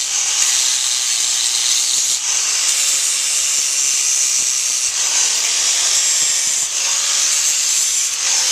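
Electric power grinder abrading the horn of a horse's hoof while smoothing the frog: a steady high hiss with a few brief dips as the grinder is eased off and reapplied.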